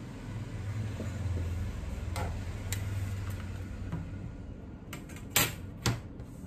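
Handling sounds as a metal ruler is laid against a telescopic fishing rod on a wooden desk: a low rumble of movement over the first few seconds, a few light clicks, then two sharp knocks about half a second apart near the end.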